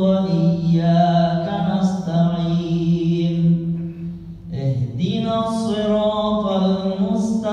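The imam's voice chanting Quranic recitation aloud during the Isha prayer, in long drawn-out melodic notes. He pauses for a breath about four and a half seconds in, then carries on.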